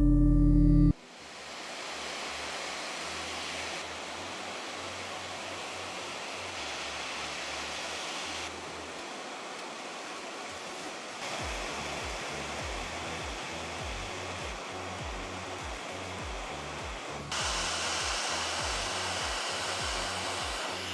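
Steady rushing air from a hot-air blower such as a rework station, stepping up and down in level a few times, over a faint low rhythmic beat.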